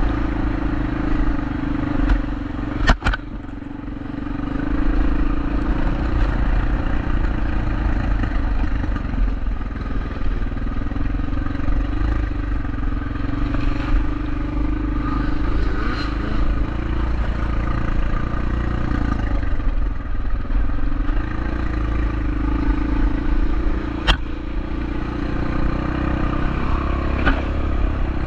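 Motorcycle engine running steadily while riding, its pitch wavering a little, with a heavy low rumble and a couple of sharp clacks, one about three seconds in and one near the end.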